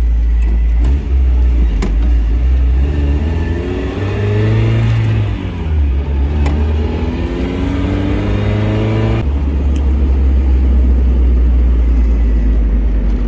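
A car engine accelerating, rising in pitch and dropping back several times as it pulls through the gears, over a heavy low road rumble. About nine seconds in it changes abruptly to a steady low rumble.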